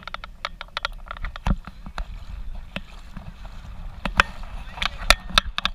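Irregular sharp splashes of shallow water close to the microphone, several to the second and louder near the end, over a steady low wind rumble on the microphone, with faint voices.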